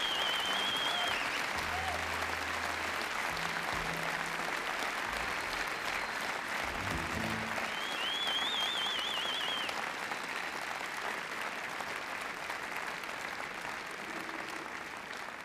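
Concert audience applauding, with a shrill wavering whistle at the start and again about eight seconds in. A few low held notes sound under the clapping in the first half, and the applause slowly dies down.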